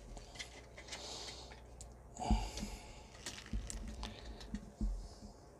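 Small clicks and knocks of plastic toy parts being handled and pressed together, with a breath through the nose about two seconds in.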